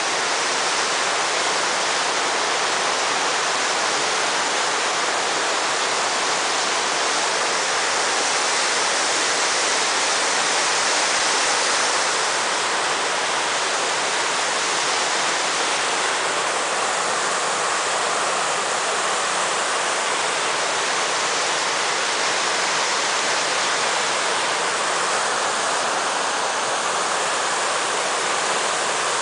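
Whitewater rapids of a mountain river, a steady, loud rushing of water pouring over and around rocks.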